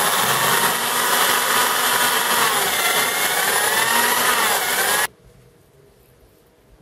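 Hand-held electric drill running and cutting into an aluminium block through a drill guide bushing, with a faint shifting squeal from the bit. It stops abruptly about five seconds in.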